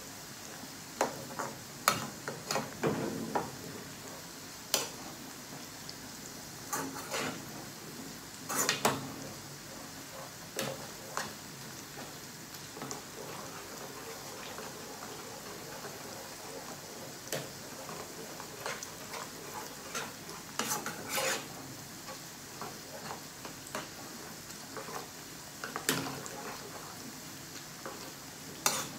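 A metal spoon scraping and clinking irregularly against a small frying pan while stirring besan boondi frying in oil, over a steady sizzle. The boondi is being fried until light brown.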